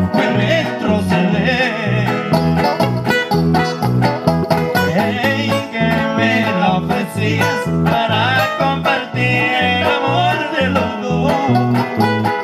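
Instrumental break of a song: a lead melody over a steady beat, with the bass alternating between two notes.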